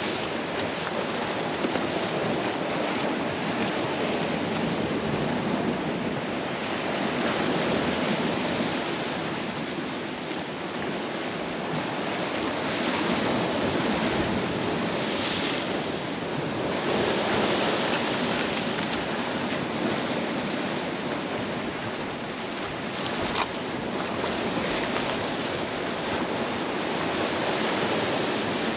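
Sea surf washing against the shore, swelling and easing every few seconds, with some wind on the microphone.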